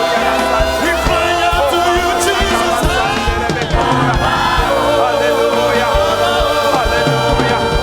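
Congregation singing and praying aloud together over instrumental worship music, many voices overlapping.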